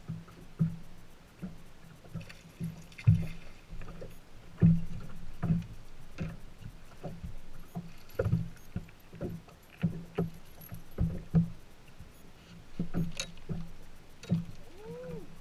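Irregular low knocks and thumps with light clicks, the sound of gear being handled in a small boat; near the end a short squeak rises and falls in pitch.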